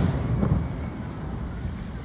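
Aerial fireworks: the low rolling boom of a shell that burst just before fades out, a fainter bang comes about half a second in, and then a steady low rumble of distant bursts remains.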